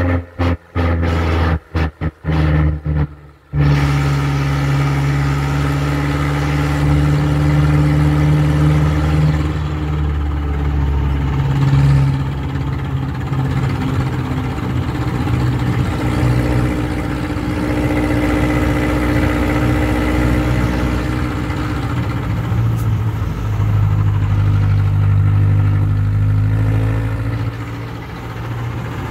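Engine of the vehicle the camera rides in, running steadily along a road and heard from on board, its pitch shifting several times with speed. The sound cuts out completely several times in the first few seconds.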